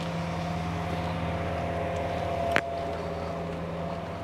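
A steady machine hum with a low drone and a couple of fainter higher tones, and a single sharp click about two and a half seconds in.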